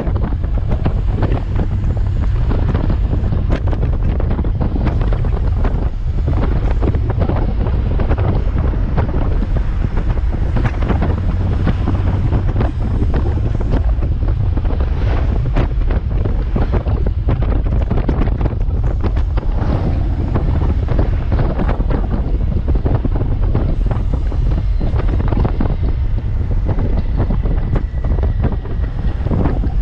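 Wind blasting the microphone on a Honda Gold Wing touring motorcycle cruising at highway speed: a loud, steady, buffeting rumble with road and engine noise underneath.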